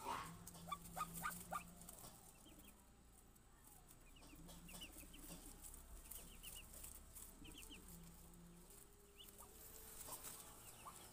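Faint, high peeping of days-old muscovy ducklings, coming in short clusters of three or four peeps every second or two, with a few soft clicks in the first two seconds.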